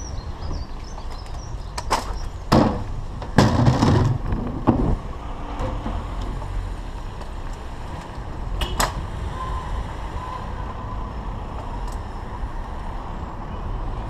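Wind and road rumble on the microphone of a camera riding on a moving bicycle, with a few sharp knocks and rattles two to five seconds in and one more near nine seconds.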